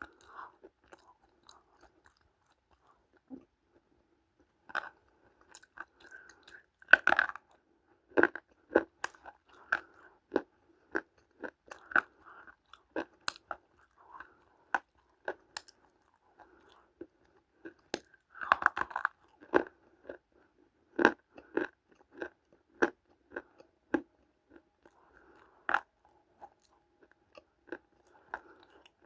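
Multani mitti (fuller's earth clay) being bitten and chewed: irregular sharp crunches, roughly one a second. There are two louder, denser bites, a quarter of the way in and again about two-thirds in.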